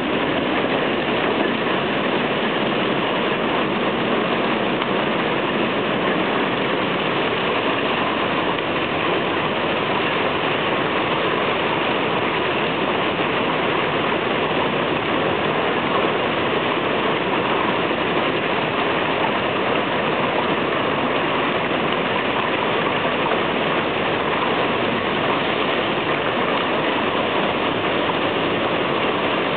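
Torrential thunderstorm downpour driven by strong wind: a loud, steady, dense roar of rain that barely changes.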